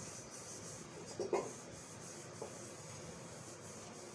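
Felt-tip marker writing on a whiteboard: faint rubbing and squeaking strokes, a few short ones standing out, the clearest a little over a second in.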